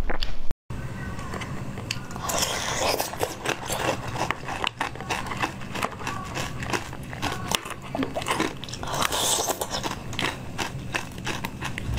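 Close-miked biting and chewing of crunchy bead-coated candy balls, a dense run of small crunches and crackles with a few louder bites. A split-second gap of silence comes just after the start.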